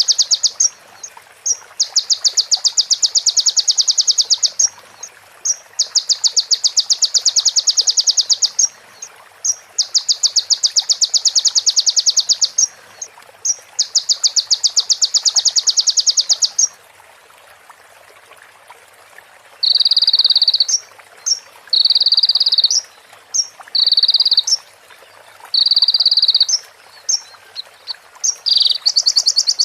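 Small songbird calls: rapid rattling trills about two and a half seconds long, repeated four times with short gaps. After a pause of a few seconds comes a run of shorter, lower bursts about a second long, mixed with brief chirps, with a longer high trill near the end.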